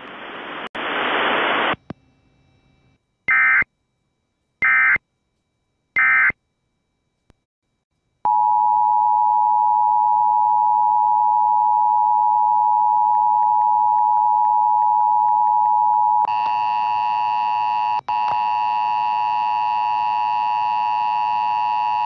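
Emergency Alert System signals: three short warbling data bursts, the end-of-message code, then a steady single-pitch alert tone. About halfway through the tone changes to a harsher attention signal of several pitches at once, which keeps going.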